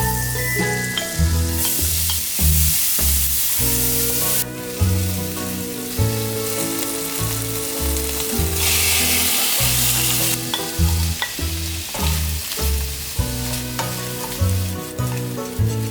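Food sizzling and frying in a pan, in two louder stretches of hiss. Gentle background music with a pulsing bass line plays throughout.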